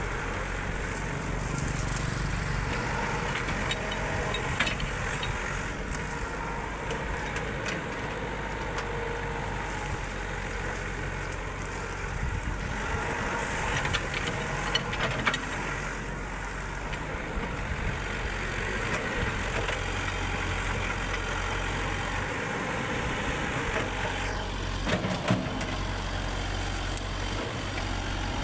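Excavator's diesel engine running steadily, with a few sharp knocks or clanks, about five seconds in, in a cluster around the middle, and again near the end.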